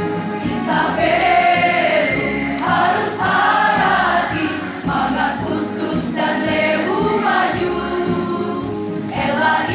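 A school choir singing in several voices, with electronic keyboard accompaniment, in phrases that swell and break off every second or two.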